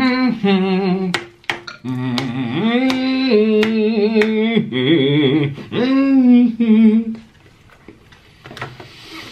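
A man humming a tune: a run of held notes that step up and down in pitch, stopping about seven seconds in.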